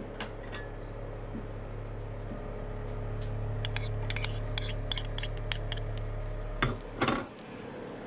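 Minced garlic dropping from a small bowl into an oiled nonstick frying pan, a quick patter of small clicks for about two seconds. Two louder knocks follow near the end, over a low steady hum that stops at the same moment.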